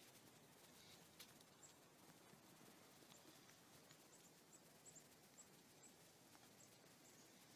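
Near silence with faint, short, high chirps from a small bird, repeating at uneven spacing. A single faint click comes just after a second in.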